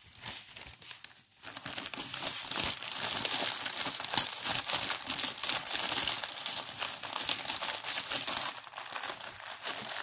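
Plastic packaging of a diamond painting kit crinkling and rustling as it is handled and folded, starting about a second and a half in and going on in a dense run of small crackles.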